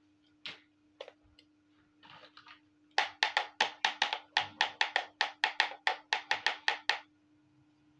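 Small plastic toy pot with lid clacking rapidly in the hand, about five sharp plastic clicks a second for some four seconds, after a few single clicks as it is picked up.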